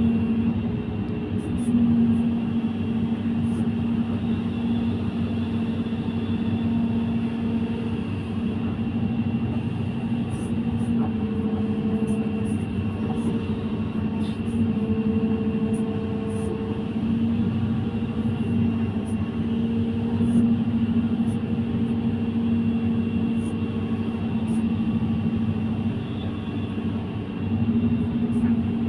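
Excavator's diesel engine running steadily under work, its pitch dipping and rising slightly as the load changes.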